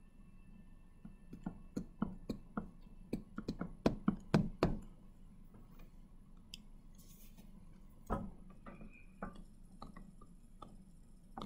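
Irregular light taps and clicks, about a dozen in quick succession in the first half, a couple of them louder, then a few more scattered near the end.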